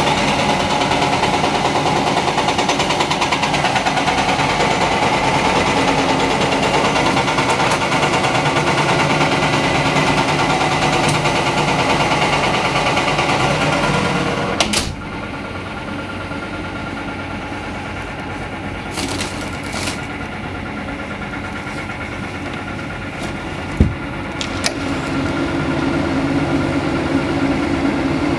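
Caterpillar 330D L excavator's diesel engine running under hydraulic load as it digs and loads a dump truck, with dense construction-site machinery noise over it. About halfway through the level drops abruptly. A single sharp clank comes about three-quarters of the way in, and the engine's low drone builds again near the end.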